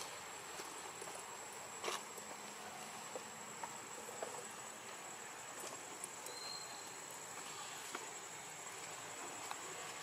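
Outdoor forest ambience: insects keep up a steady high-pitched drone, with a sharp click about two seconds in and a few fainter ticks.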